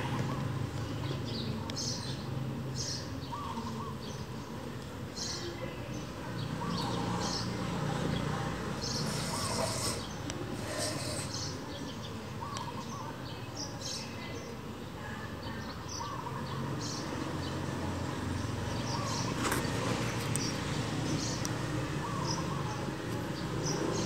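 Birds chirping: short high calls repeating every second or so, over a low steady hum.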